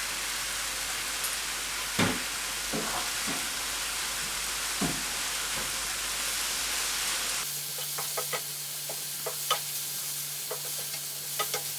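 Mushrooms and onion sizzling in oil in a frying pan as they are stirred, with pepper powder just added. Scattered knocks and scrapes of the spatula on the pan, clicking more often in the second half.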